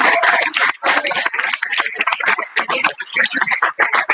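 Audience clapping: many quick, irregular hand claps.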